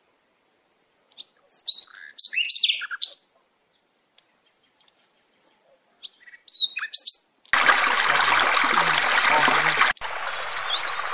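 Forest birds chirping and whistling in short, high sweeping calls, in two clusters with dead silence between them. About seven and a half seconds in, a steady rushing hiss of outdoor ambience comes in, and a few more chirps sound over it near the end.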